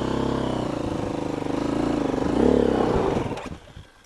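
KTM dirt bike's single-cylinder engine running at low revs, revving up briefly about two and a half seconds in, then dying away about three and a half seconds in. A few light knocks follow.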